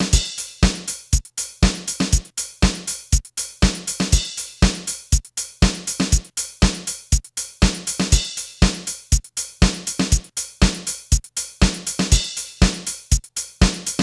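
Background music with a steady drum-machine beat, a kick about twice a second with hi-hat hits between.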